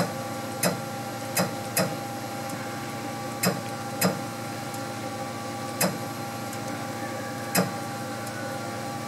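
A CNC router's Z axis being jogged down one small step at a time, with a short click at each step. There are about eight clicks at irregular intervals over a steady hum.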